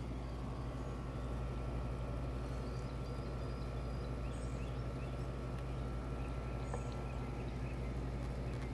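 A steady low hum, with a few faint, short, high chirps now and then.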